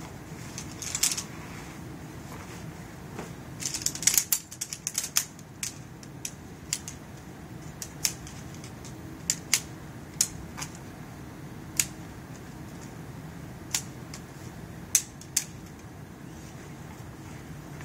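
Aluminium pole sections of a two-leg folding camp chair frame clicking and snapping together as the frame is assembled. There is a quick run of clicks about four seconds in, then single sharp clicks every second or two. Nylon fabric rustles near the start, over a steady low hum.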